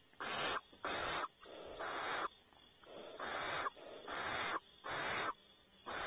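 Barn owl giving a series of harsh, breathy hisses, about seven in a row at roughly one a second, each lasting about half a second.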